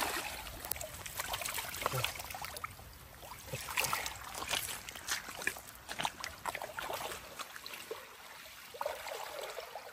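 Water splashing, sloshing and dripping in irregular bursts as a mesh keep net holding several carp is lifted and lowered in shallow lake water.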